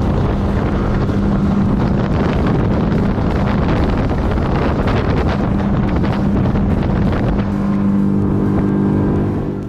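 Motorboat underway: the engine's steady drone mixed with wind buffeting the microphone and water rushing past the hull. Near the end music fades in and the boat noise drops away.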